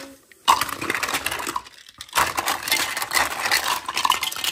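Plastic toys clattering and rustling as they are handled, with many small clicks and knocks and a short pause about two seconds in.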